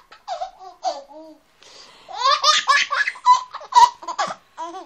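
Baby laughing in short bursts, then a longer run of quick laughing pulses about two seconds in.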